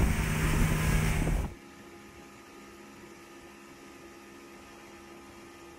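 A boat's motor and wind rumble on the microphone for about a second and a half, then cut off suddenly to a faint, steady electrical hum.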